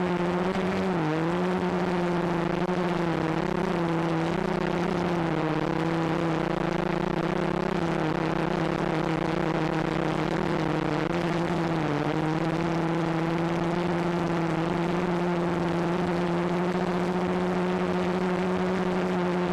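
Walkera QR X350 Pro quadcopter's brushless motors and propellers humming steadily in flight, heard from its on-board camera, the pitch dipping briefly a few times as the throttle eases.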